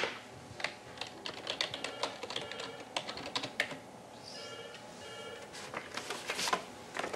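Typing on a computer keyboard: irregular key clicks, with a short run of faint steady tones about halfway through.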